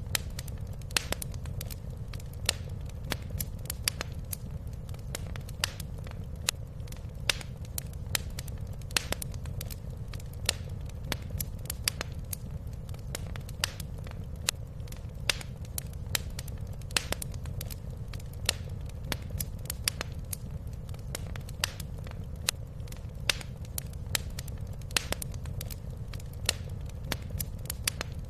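Wood fire crackling in a fireplace: irregular sharp pops and snaps, a few a second, over a steady low rumble of the burning fire.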